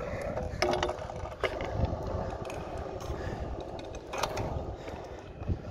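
Stunt scooter rolling over rough asphalt: a steady wheel rumble broken by a few sharp clicks and rattles from the scooter.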